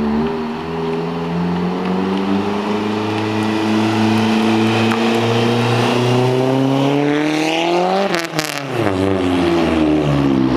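Mazdaspeed Protege5's turbocharged four-cylinder through a straight-pipe exhaust, accelerating hard toward the listener on a loud, climbing engine note. About eight seconds in it passes, and the note drops sharply with a brief cluster of sharp cracks. It carries on at a lower pitch as the car pulls away.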